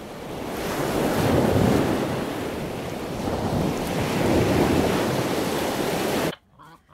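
Ocean surf: a steady wash of waves that swells twice and cuts off suddenly near the end.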